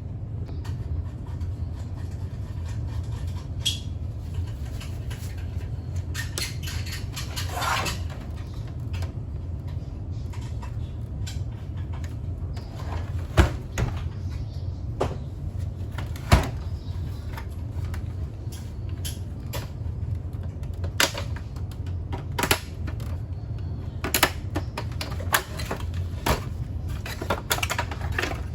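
Scattered clicks and knocks of parts and tools being handled while a coffee machine is taken apart, with two sharper knocks around the middle. A steady low hum runs underneath.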